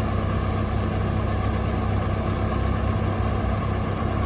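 A heavy engine running steadily at a constant speed, a low, even hum.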